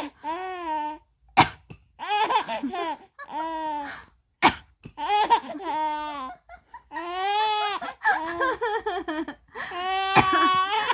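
A baby laughing in a string of high-pitched squealing giggles, one burst after another. The bursts are set off by a few short coughs from the mother, heard about a second and a half in and again around four and a half seconds.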